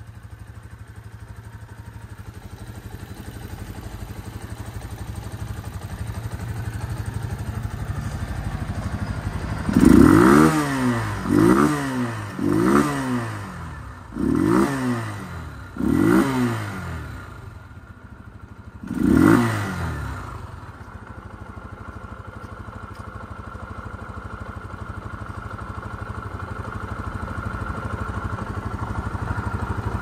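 Gilera VC 150's single-cylinder four-stroke engine idling, then revved with six quick throttle blips from about ten seconds in, each shooting up and falling back, before settling to idle again.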